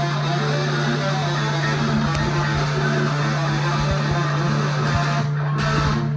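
Electric guitar played through an amplifier: a solo of many quick notes and strums over a steady low hum, with a brief break near the end.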